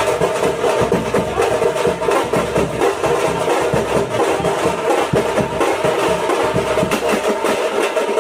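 Thappattai (parai) drum troupe playing: frame drums struck with sticks, with large bass drums, in a fast, dense, steady rhythm.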